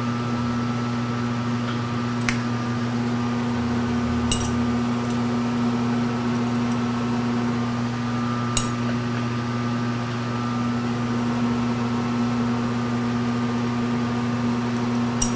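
Milling machine spindle turning a facing and boring head, running with a steady electric hum, with a few faint light ticks.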